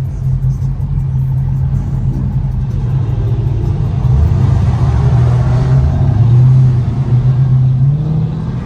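Dodge Charger 392's 6.4-litre HEMI V8 running with a steady low exhaust rumble, growing louder for a few seconds in the middle.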